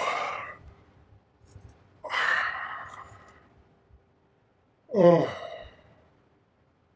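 A man's weary sighs as he settles down to rest. A falling, voiced "oh" trails off at the start, a long breathy exhale comes about two seconds in, and another falling sigh comes about five seconds in.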